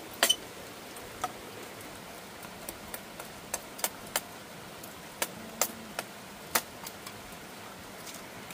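Irregular sharp ticks and taps, about one or two a second and unevenly spaced, over a steady hiss.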